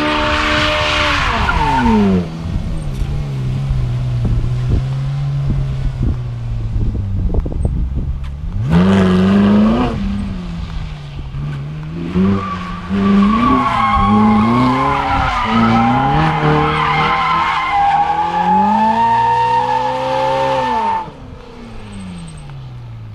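Ferrari 458 Italia's V8 engine revving up and down as the car spins donuts, with the tyres squealing in a wavering screech. The revs fall away about a second in and again near the end, when the squeal stops and the sound drops.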